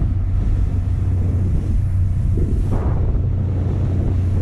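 Small motorboat under way: a steady low engine drone under wind rushing over the microphone and water churning past the hull.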